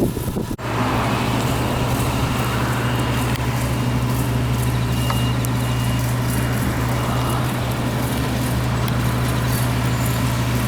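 Yanmar farm machine's engine running steadily at a constant pitch in the rice field, starting abruptly about half a second in.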